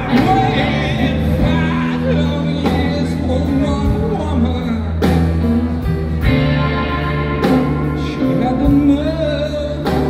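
Blues-rock band playing live: electric guitar, bass guitar, drums and keyboard, with a singer's voice over them.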